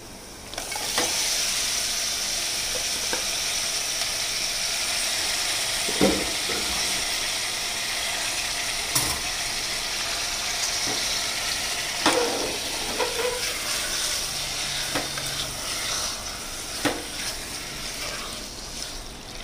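Raw mutton pieces frying in hot oil with onions and ginger-garlic paste in an aluminium pressure cooker pan: a steady sizzle that starts up about a second in as the meat goes into the oil. A wooden spatula stirs the meat, knocking against the pot a few times.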